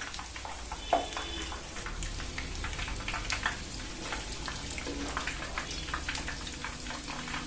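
Breaded chicken cheese balls deep-frying in hot oil: a steady crackling sizzle full of fine pops. A steel slotted skimmer turns them over, with one sharp clink against the pan about a second in.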